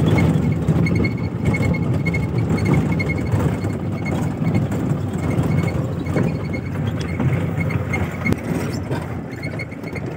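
Suzuki Mehran's small three-cylinder petrol engine running at a steady pace with the tyres rumbling over a dirt track, heard from inside the cabin. It grows somewhat quieter toward the end.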